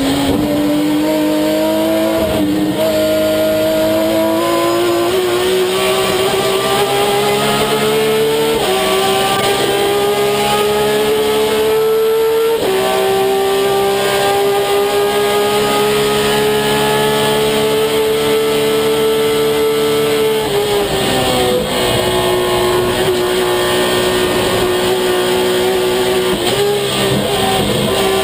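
A TC Mouras touring car's engine at speed, heard from the onboard camera inside the cockpit. Its pitch climbs slowly, drops at a gear change about twelve seconds in, then falls away about twenty seconds in as the driver lifts off, and it pulls steadily again.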